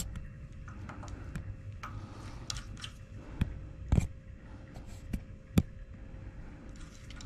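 Scattered small metallic clicks and taps as bolts and washers are handled and seated by hand in a Power Pole anchor's knuckle, about half a dozen sharp ones, the loudest at the start and around four and five and a half seconds in. A faint steady hum sits underneath.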